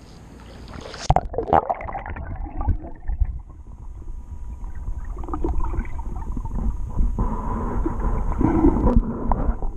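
A camera plunging under water about a second in, with a sudden splash. After that come muffled underwater rumbling from water movement and scattered dull knocks as the camera is handled.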